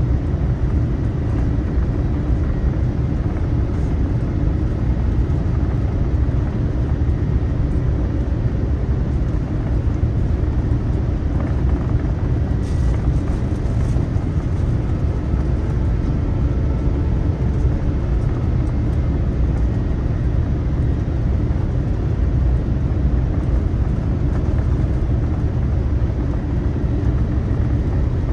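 Steady cabin noise of a Boeing 787-9 airliner in flight: an even, unbroken low rumble of engines and rushing air.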